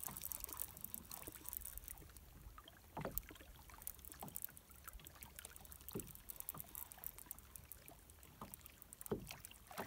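Small waves lapping and slapping against the hull of a small boat, with scattered light knocks every second or two over a steady low wind rumble.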